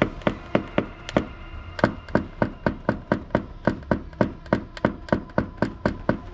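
Paintless-dent-repair tap-down tool struck with a small hammer against a car body panel, about four quick, even taps a second with a brief pause about a second in. This is the knocking-down of high spots to blend the dent out.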